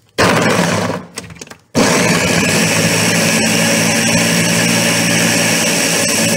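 Countertop blender chopping frozen strawberries with yogurt and sugar: a short burst that fades away, then from a little under two seconds in it runs steadily at full power.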